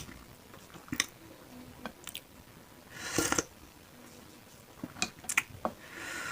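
Close-miked chewing and eating sounds of bakso meatballs with beef tetelan. There are several sharp clicks and a longer noisy burst about three seconds in.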